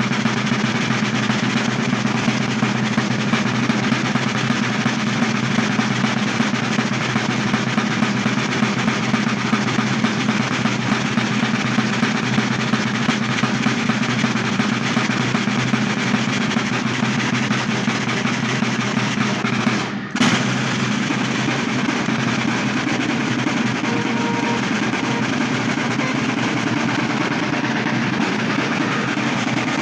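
An ensemble of Sicilian tamburi, large rope-tensioned drums, played together in a dense, continuous rolling rhythm. The sound cuts out for a split second about two-thirds of the way through.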